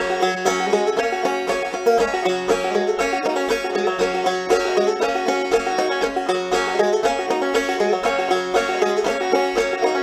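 Instrumental background music with rapid picked string notes over a steady bass pulse about twice a second.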